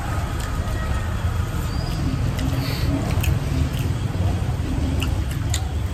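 Close-up eating by hand: wet chewing and lip smacks with scattered sharp clicks and short squeaks of the mouth, as rice and curry are mixed and eaten, over a steady low rumble.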